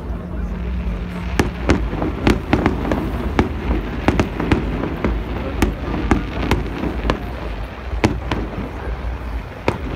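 Fireworks display going off: a run of sharp cracks and pops at irregular intervals, starting about a second and a half in, over a steady low background rumble.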